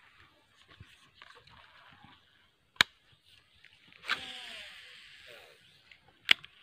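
Baitcasting reel through a cast: a sharp click as the spool is freed, then about a second of the spool whirring out line, its pitch falling as it slows, and another sharp click as the reel is re-engaged.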